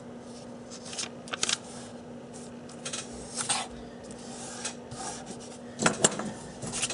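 A sheet of paper being handled, folded in half and creased, in short bursts of rustling.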